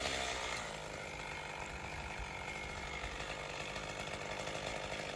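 Stihl chainsaw running at high revs under load, boring into an ash trunk as part of a felling cut.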